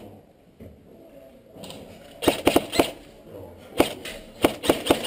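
Airsoft gun shots: sharp cracks fired in quick semi-automatic strings, four in half a second about two seconds in, a single shot, then another string of four or five near the end.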